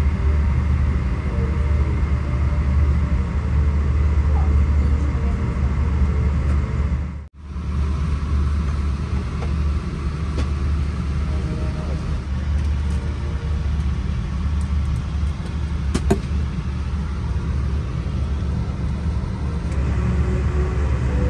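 Steady low rumble inside a vehicle, cutting out for a moment about seven seconds in.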